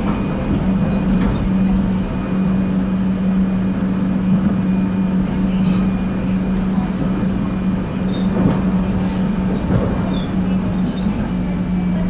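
Electric commuter train running at speed, heard from inside the carriage: a steady rumble of wheels on rail with a steady low hum from the drive and scattered clicks over the track. The hum drops slightly in pitch near the end.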